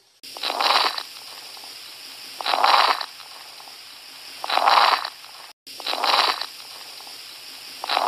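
Recorded stethoscope lung sound of coarse crackles: a rough, rattling breath noise that swells with each breath, about every two seconds, over a steady background hiss. Coarse crackles are a sign of fluid or secretions in the airways.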